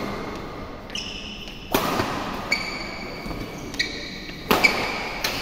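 Badminton rally: sharp racket hits on the shuttlecock, the loudest just under two seconds in and about four and a half seconds in, with shoes squeaking on the court floor between them, echoing in a large hall.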